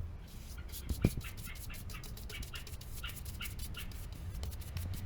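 Sandpaper rubbed by hand on the chair's wooden frame in quick back-and-forth strokes, about four or five a second, starting about half a second in.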